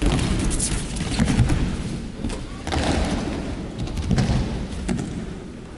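Repeated heavy thuds of bodies landing on a tatami mat as partners are thrown with kotegaeshi (wrist-turn throws), mixed with the swish and rustle of gi and hakama.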